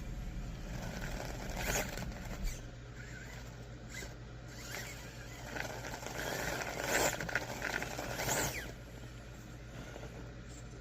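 Small electric motor and drivetrain of an RC rock crawler whining in short bursts of throttle, with its tyres and chassis scraping as it climbs; the bursts are louder about two seconds in and twice later on. A steady low hum sits underneath.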